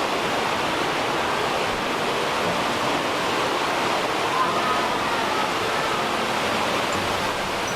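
Steady rushing of the Varone waterfall, a powerful torrent of falling water in its rock gorge.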